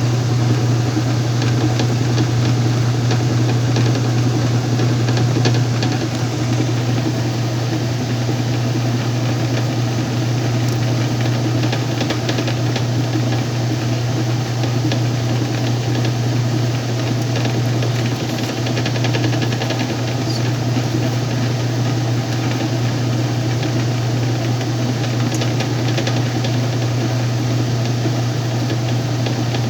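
Whirlpool washing machine running with a steady low hum and even mechanical noise, in its spin-and-drain stage.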